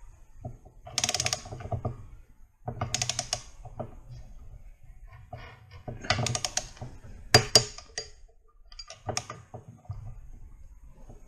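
Ratchet head of a long-handled torque wrench worked back and forth on a driveshaft-to-differential flange nut, in about five short bursts of rapid clicking separated by brief pauses as the nut is run down.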